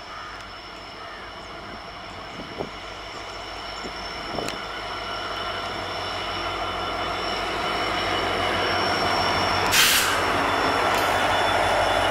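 Indian Railways WDP-4D diesel-electric locomotive approaching with a passenger train, its engine and running noise growing steadily louder as it nears, with a steady high whine throughout. A brief loud burst of noise comes about ten seconds in.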